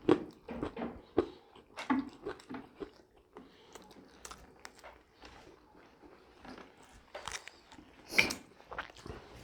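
Person chewing and biting food close to the microphone: irregular wet mouth sounds and crunchy bites, with a louder sharp crunch about eight seconds in.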